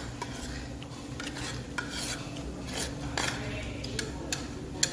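Light scattered clicks and faint scraping of a thin metal pick working against the shell of a raw egg, prying off shell fragments, over a low steady hum.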